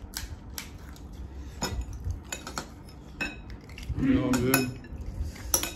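Plates, bowls and utensils clinking and knocking on a table in scattered sharp clicks during a golgappa meal, with a brief voice about four seconds in.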